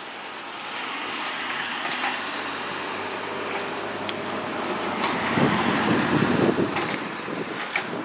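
A John Deere mini excavator's engine running as it digs, with wind noise on the microphone; the sound swells louder about five seconds in, with a few sharp clicks near the end.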